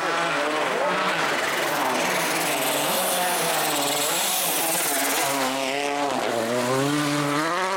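Volkswagen Polo R WRC's turbocharged four-cylinder rally engine at full pace, its pitch climbing and falling through the gears. The pitch drops about six seconds in as the car comes off the throttle for the bend, then climbs again as it accelerates away.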